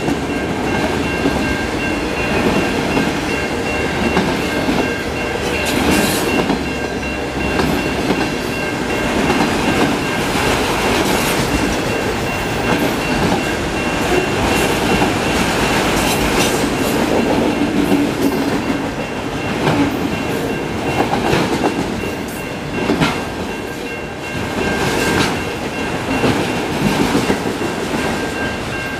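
Freight train of auto rack cars on flat cars rolling past close by: a steady rumble with the clickety-clack of steel wheels over rail joints and scattered clanks. A grade-crossing bell rings with a steady high tone throughout.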